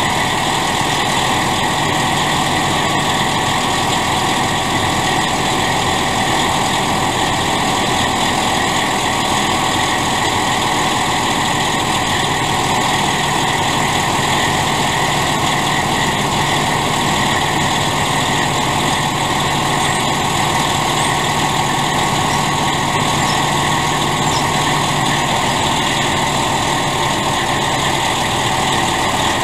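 Detroit Diesel Series 60 12.7 L inline-six diesel of a 1996 Freightliner FLD running at a steady idle with the PTO hydraulics engaged, raising the end-dump trailer's box. The sound holds even, without revving or breaks.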